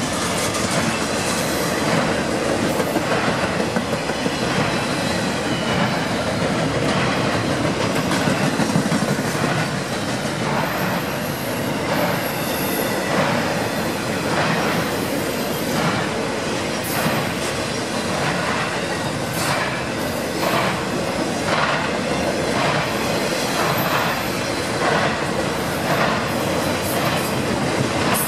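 CSX intermodal freight cars rolling past: a steady rumble of steel wheels on rail, with clacks repeating as the wheels cross rail joints and a few brief high-pitched wheel squeals.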